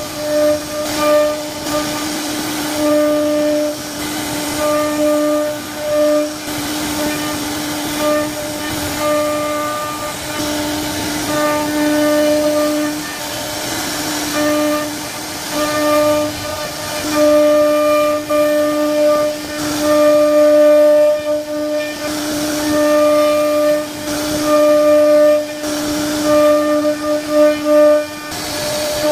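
CNC router spindle whining at a steady pitch as it carves wood, over a constant hiss of cutting; the whine breaks off and comes back every few seconds.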